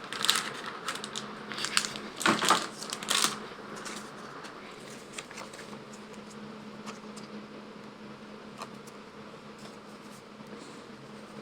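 Pokémon cards and their plastic sleeves or wrapper rustling and crinkling as they are handled, three or four short rustles in the first few seconds. After that there are only faint light ticks over a low steady hum.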